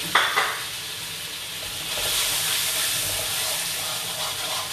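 Chili paste sizzling in hot oil in a pan, a steady hiss that grows louder about two seconds in, as the paste cooks down until the oil separates. A brief clatter right at the start.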